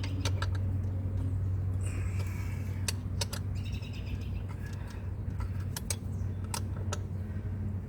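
Small birds chirping on and off over a steady low hum, with scattered sharp clicks and taps.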